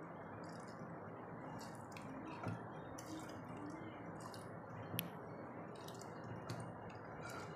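A hand mashing and mixing cooked rice in water in a clay pot, making faint wet sounds, with a sharp click about five seconds in.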